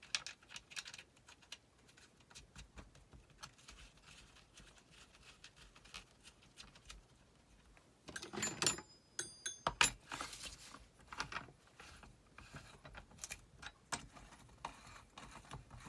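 Light metallic clicking and rattling as a Husqvarna chainsaw's bar nuts are spun onto the studs and the bar and chain are handled, with a louder clatter about eight to nine seconds in.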